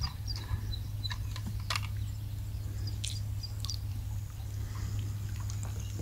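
A bird calling in a quick run of short, high notes that fall slightly in pitch and fade out about a second in, over a steady low hum. A few light clicks follow.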